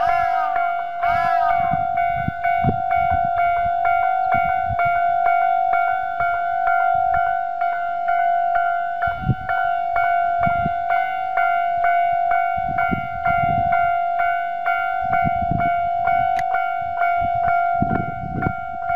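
Japanese railway level-crossing alarm sounding its standard tone: an electronic bell dinging at a steady, rapid, even rhythm. Gusts of wind on the microphone rumble underneath.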